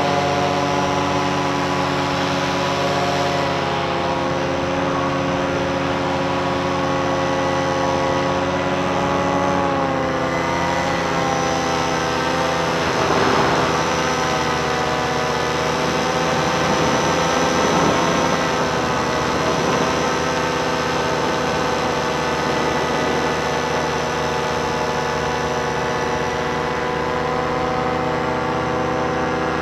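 Paramotor engine and propeller running steadily in flight, a loud droning note that drops slightly in pitch a few seconds in and again about ten seconds in. Two brief rushes of noise rise over it near the middle.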